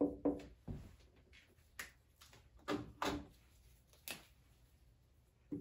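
A series of about eight short, light taps and knocks, spaced irregularly, with the loudest near the start and a pair about three seconds in.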